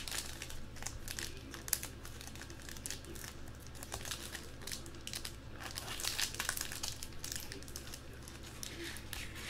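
Plastic shrink wrap on a trading-card box crinkling and tearing as it is cut and pulled off by hand, in irregular crackles and rustles.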